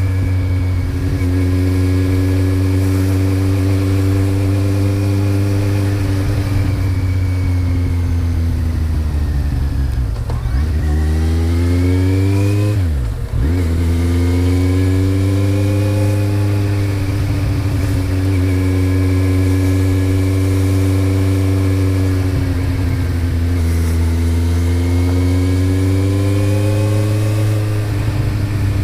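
Kawasaki Z1000's inline-four engine running through a Mivv GP exhaust with the dB killer fitted. Its note is steady, drifting gently down and back up in pitch a few times, with a deeper dip and recovery a little before the middle.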